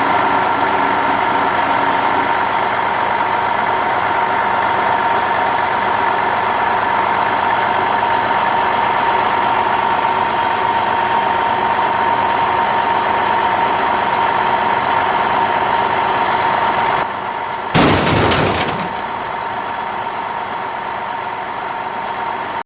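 A vehicle engine runs steadily with a high whine over it. About eighteen seconds in there is a sudden loud burst, and after it the engine runs a little quieter.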